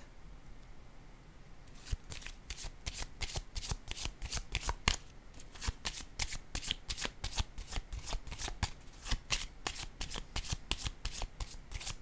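A deck of divination cards being shuffled by hand: a rapid, irregular run of soft card clicks and slaps that starts about two seconds in and keeps on steadily.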